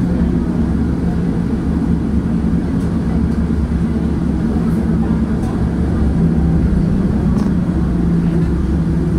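Inside a PCC streetcar under way: a steady rumble of steel wheels on the rails with a low hum from the motors and gearing, and a few faint ticks.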